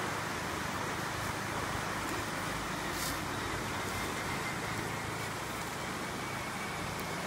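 Axial Wraith 1.9 radio-controlled rock crawler driving slowly over a dirt trail: a faint electric-motor and gear whine under a constant rushing noise.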